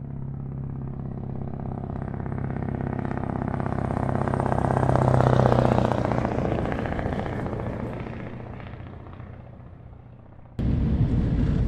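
A heavy road vehicle going past: its engine note holds steady while the engine and tyre noise swell to a peak about halfway through and then fade away. Near the end it cuts suddenly to steady engine and road noise heard from inside a lorry cab.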